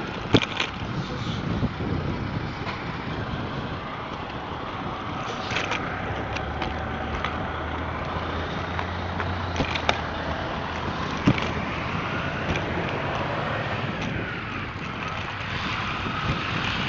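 A bicycle rolling along a paved trail: a steady rush of wind and road noise, with a few sharp clicks from the bike rattling.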